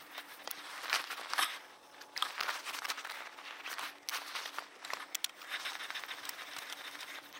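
Handling noise as a .410 shot shell is loaded into a homemade single-shot pistol's threaded barrel: irregular rustling of hands and sleeve against the gun, with a few sharp clicks of metal parts.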